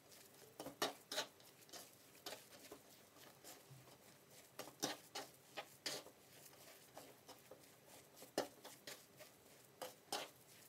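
Hands kneading and squeezing a dry, crumbly sweet curd mixture in a wooden bowl, giving soft, irregular crunching and rustling. A few louder crackles come about a second in, around five to six seconds in, and near the end.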